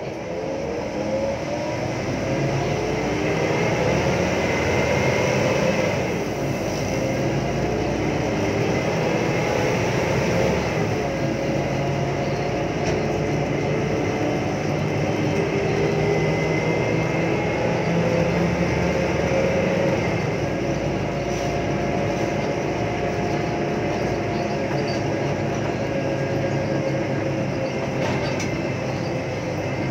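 Daewoo BH115H city bus under way, its Voith automatic transmission whining loudly over the diesel engine. The whine climbs in pitch and drops back at a gear change about six seconds in and again about ten seconds in, then holds steadier.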